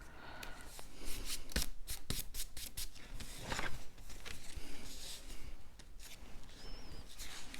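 Cardstock being handled and pressed by hand: paper rubbing and rustling, with a run of light clicks and taps about two seconds in.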